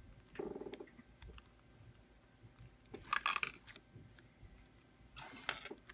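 Small clicks and handling noises of hobby tools and plastic on a work table, with two short louder rustles about three seconds and five seconds in.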